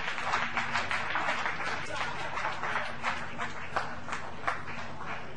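A roomful of people applauding: many hands clapping at once, steady throughout.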